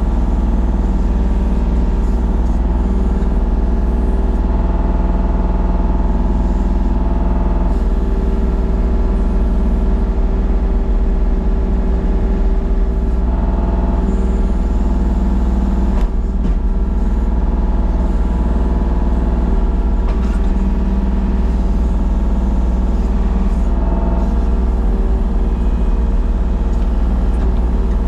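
A large engine running steadily at constant speed, with a deep, even drone and no change in pitch.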